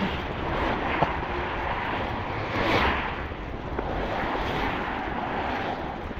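Road traffic noise with wind rumbling on the microphone, swelling louder about three seconds in.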